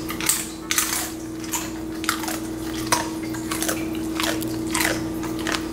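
Siberian husky chewing a treat, with many irregular crunches and mouth clicks.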